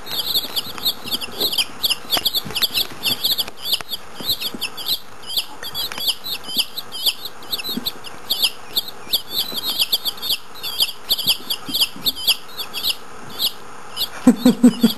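Six day-old chicks of mixed breeds (Easter Eggers, Dominique, Black Australorp, Buff Brahma, Salmon Faverolle) cheeping together without pause, many short high peeps a second overlapping one another.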